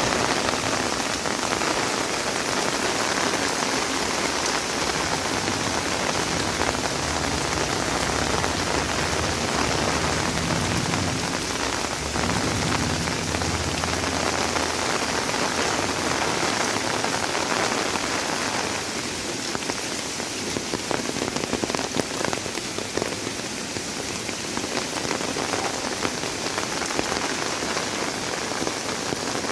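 Heavy rain falling steadily, with a dense patter of drops on surfaces; it eases slightly for a few seconds about two-thirds of the way through.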